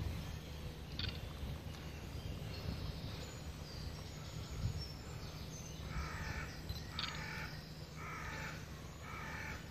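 Crow cawing four times, about once a second, in the second half, over a steady low background rumble.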